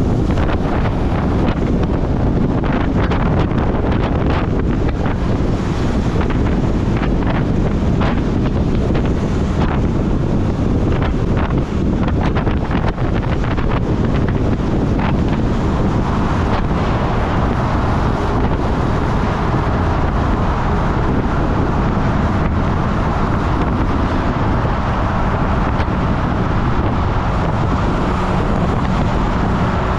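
Wind buffeting the camera microphone on a moving Honda CB400SF Super Four, with the bike's inline-four engine running underneath. About halfway through the gusting eases and the engine's steady note comes through more clearly.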